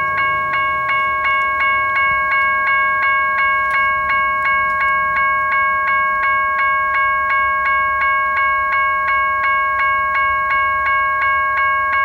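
Railroad level-crossing warning bell ringing steadily at about three strikes a second, each strike a bright metallic ring with several overtones, sounding while the crossing signals are active for an approaching train.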